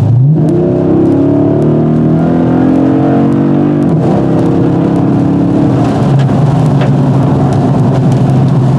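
Dodge Challenger SRT8 392's 6.4-litre Hemi V8 with Flowmaster exhaust, heard from inside the cabin, accelerating hard. The engine note rises sharply as the throttle opens and keeps climbing. About four seconds in it drops at an automatic upshift, then pulls on with a steady note.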